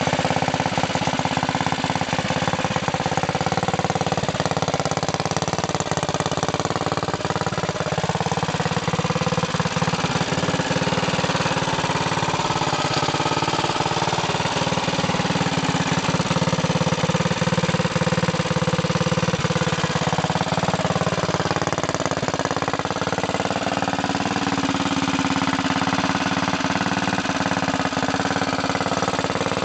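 Predator 212cc single-cylinder OHV four-stroke engine, built as a mild race engine with a bigger cam, heavier valve springs and a ported head, running steadily through an open chrome header pipe.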